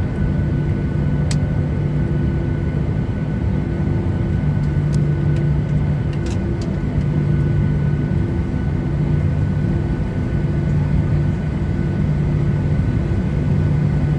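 Steady cabin noise of a Boeing 737-800 on the ground: a continuous low drone with a hum that swells and fades every second or two, and a thin steady whine above it. A few faint clicks sound around the cabin.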